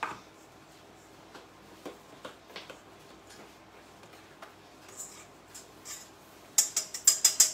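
Metal fork scraping and tapping against a stainless steel mixing bowl as dry flour mix is knocked out into a tray: faint light ticks at first, then a quick run of sharp metallic taps near the end.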